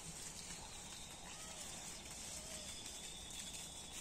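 Faint outdoor ambience: a steady hiss with scattered soft ticks, and two or three faint, short rising-and-falling calls around the middle.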